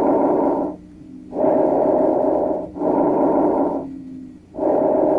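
Normal bronchovesicular breath sound, as auscultated over the manubrium. It is a hiss of airflow in which the inspiratory and expiratory phases are about equally long, each a little over a second, with a brief break between them and a longer pause before the next breath. One phase ends about a second in, a full breath follows, and the next breath begins near the end.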